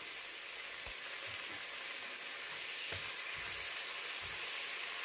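Sliced onions and diced green pepper sizzling steadily in hot oil in a pot, with a few soft knocks as a spatula stirs them.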